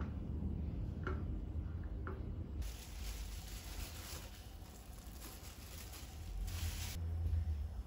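A silicone spatula stirs soup in a stainless steel saucepan with a few soft scrapes and taps. About two and a half seconds in, a plastic bag starts crinkling as it is squeezed and shaken over the pot, stopping near the end. A low steady hum runs underneath.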